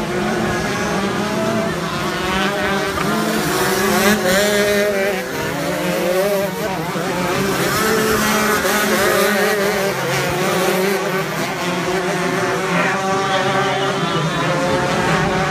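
Two-stroke shifter kart engines revving up and down, several overlapping pitches rising and falling as the karts accelerate and brake through the gears.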